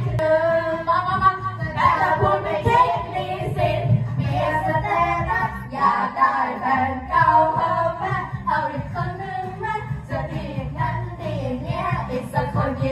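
Young voices singing a Thai-language song together into karaoke microphones over a karaoke backing track.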